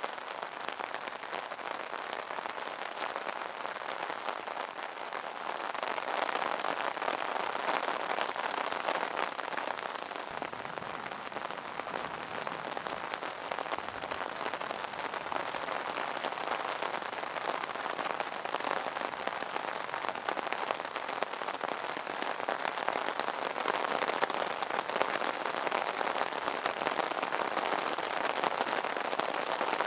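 Rain pattering steadily on an umbrella's fabric canopy, a dense mass of fine drop ticks that grows a little heavier about six seconds in.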